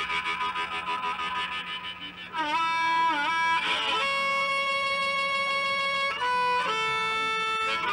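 Solo harmonica played as a melody line. It opens with a fast fluttering warble, then bends a few notes down and back up, and ends on long held notes.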